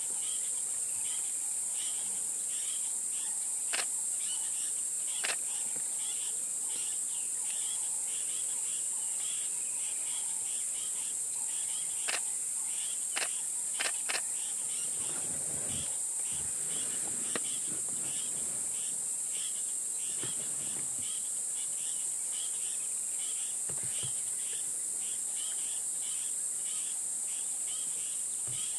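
A steady high-pitched insect chorus, with a lower chirping pulsed about twice a second beneath it. A few sharp clicks stand out at scattered moments.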